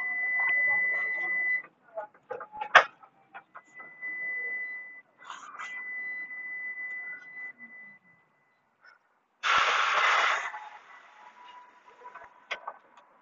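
Ride inside a moving bus: a steady high whine comes and goes, with scattered clicks and rattles. About nine and a half seconds in there is a loud hiss lasting about a second.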